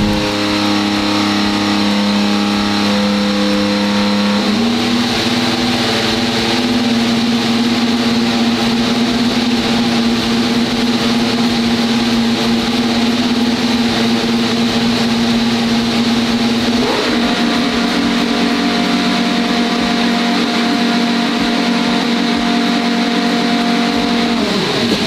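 Ferrari Formula 1 car's 1.6-litre turbocharged hybrid V6 engine running at a steady high pitch, stepping up slightly about four seconds in and changing tone again about two-thirds of the way through.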